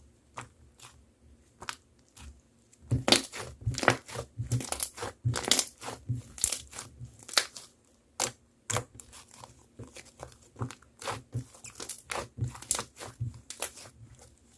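Slime being squished and pressed by hand, giving sharp sticky clicks and pops: a few scattered ones at first, then a dense run from about three seconds in that thins out near the end.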